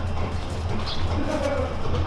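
Steady low hum, with a short low-pitched call a little past halfway through.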